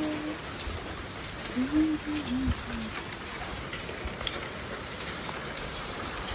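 Small hail and rain falling steadily, an even patter with a few sharper ticks. A person's voice sounds briefly about two seconds in.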